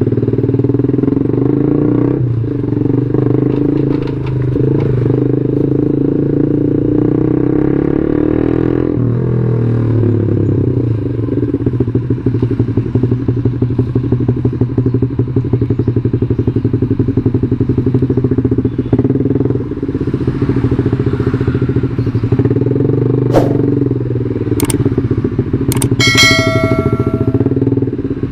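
Yamaha Jupiter MX 135's single-cylinder four-stroke engine running steadily under way, its pitch shifting around a third of the way in. A few sharp clicks and a brief high pitched tone come near the end.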